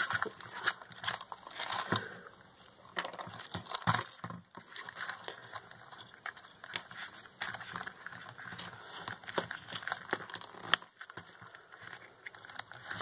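Small parts and wires of a homemade RC car chassis being handled and fiddled with: irregular light clicks, taps and rustling, with one sharper click late on.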